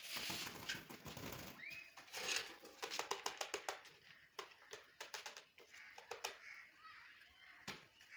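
A run of quick, close clicks and crackles, irregular and dense around the middle, with one short rising squeak nearly two seconds in.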